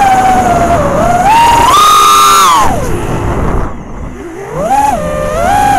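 FPV quadcopter's four 2306 2750kv brushless motors and 5040 props whining, heard through the onboard camera's microphone, the pitch rising and falling with the throttle. The pitch climbs to its highest about two seconds in, then drops and fades sharply about three to four seconds in before rising again near the end.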